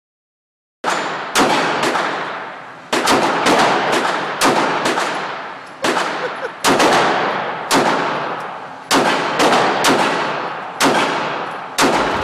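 9mm handgun fired repeatedly, about twenty shots in irregular strings, often about two a second, each sharp crack trailing off in echo.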